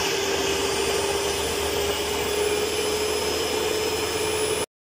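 BOSS electric stand mixer running, its beaters whipping cream in a stainless steel bowl: a steady motor whine that cuts off suddenly near the end. The cream is still thin and not yet fluffy.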